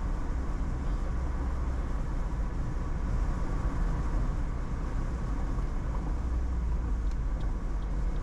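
Steady low rumble of a vehicle driving at road speed, heard from inside the cabin: engine and tyre noise with no change in pace.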